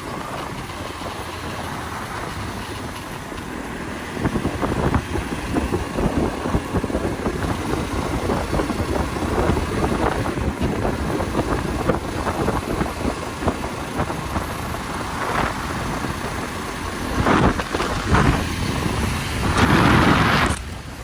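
Motorcycle engine running on the move, under heavy wind buffeting on the microphone; it surges louder briefly near the end.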